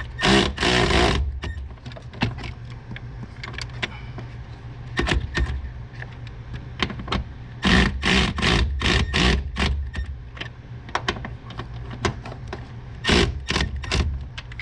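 Hand ratchet clicking in several short bursts of quick clicks as bolts are snugged down, stopping short of over-tightening.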